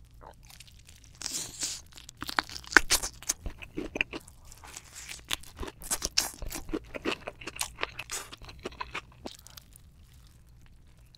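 Crunching and tearing as a piece of spicy chicken is bitten, pulled apart and chewed close to the microphone. The crackling comes thick from about a second in and dies down near the end.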